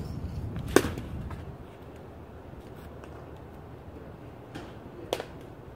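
Louisville Slugger XXL slow-pitch softball bat hitting soft mush balls: two sharp cracks about four seconds apart, the first the loudest.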